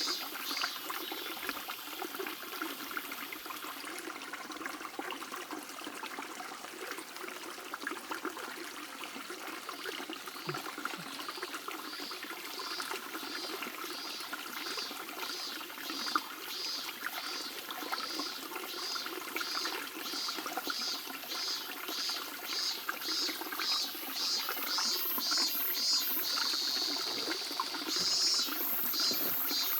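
Mountain stream babbling steadily over stones. A high chirping of about two pulses a second sounds through it from about ten seconds in, growing louder near the end.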